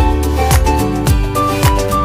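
Background music with a steady beat, about two kicks a second, under sustained notes and a melody line.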